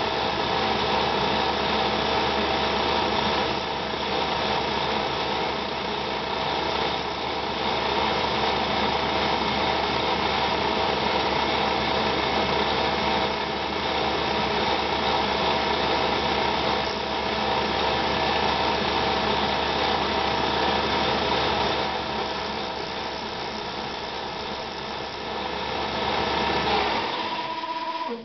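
Milltronics CNC milling machine's spindle running an end mill through an acrylic block, a steady whine over the sound of the cutter chewing plastic. The low hum drops out about a second before the end.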